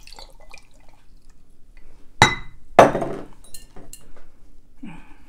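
Sweet-and-sour mix poured from a small glass pitcher, followed about two seconds in by two sharp glass clinks a little over half a second apart, then lighter clinks of glassware being handled.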